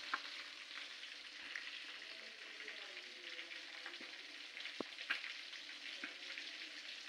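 Fish frying in hot oil: a steady sizzle with fine crackles.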